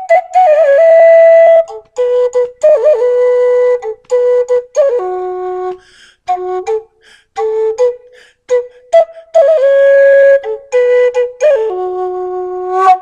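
End-blown flute playing a slow, unaccompanied melody in short phrases of held notes with breaks between them, some notes bent or trilled, ending on a long low note.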